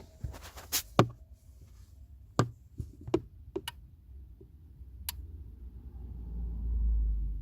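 Irregular sharp clicks and ticks from behind the glove box of a switched-off VW Golf Mk5, about ten in five seconds, the sharpest about a second in. It is the noise the owner blames for a repeatedly flat battery. A low rumble swells near the end.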